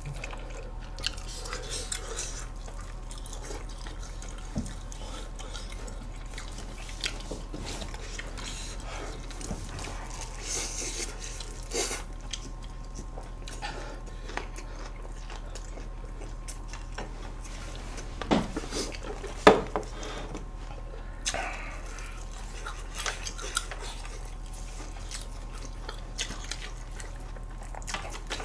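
Close-miked eating: chewing and mouth sounds, with scattered clicks and knocks of chopsticks, gloved hands and plastic take-out containers, two of them louder about 18 and 19 seconds in. A steady low hum runs underneath.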